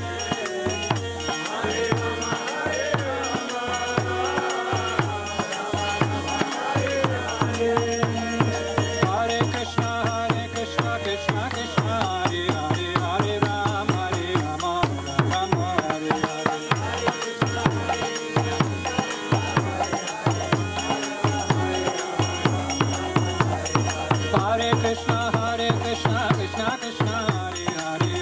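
Kirtan: a group chanting a devotional mantra in call-and-response singing over a steady fast beat of drum and hand-cymbal strokes, with sustained held notes underneath, typical of harmonium, mridanga and kartals.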